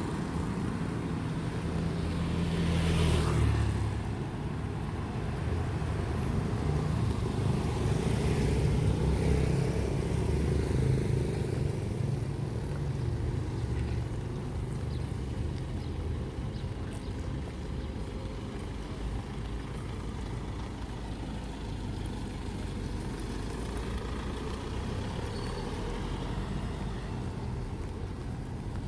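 Street traffic: motor vehicles driving past with a steady low engine rumble, one passing close about three seconds in and more going by from about eight to eleven seconds.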